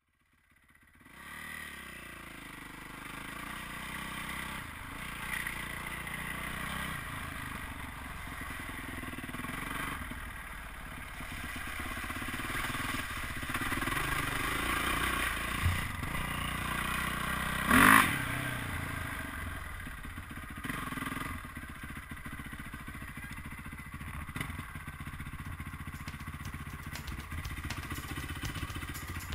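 2008 Yamaha YZ450F's single-cylinder four-stroke engine running on a dirt trail, revs rising and falling with the throttle. A sharp, loud clatter about 18 seconds in.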